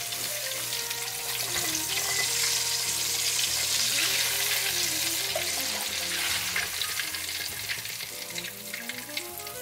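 Chicken thighs sizzling in deep-frying vegetable oil in a stockpot as they are lifted out with a wire spider strainer. It is a steady, crackling hiss that swells in the middle and eases off near the end.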